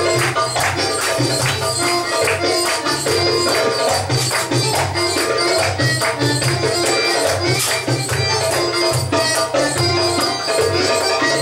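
Belly dance music with a fast, steady percussion rhythm.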